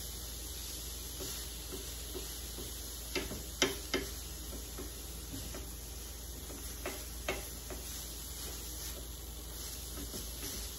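Silicone spatula stirring and breaking up crumbled chhena in a nonstick frying pan over a low flame, with a few light taps of the spatula against the pan, two close together a few seconds in, over a steady low hiss.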